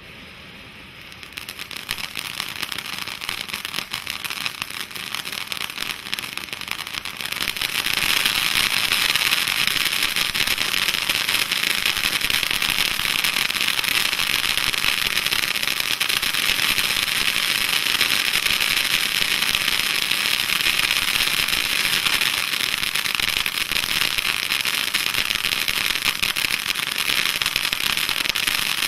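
Kimbolton Fireworks Glittering Gemstones fountain firework burning: it catches about a second in with a dense crackling hiss, grows louder at about seven seconds, then sprays steadily.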